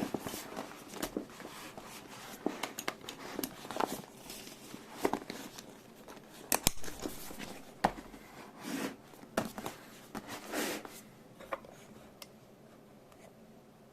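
Hands handling small items and their packaging: scattered clicks, light knocks and short rustles of crinkling plastic, dying away about twelve seconds in.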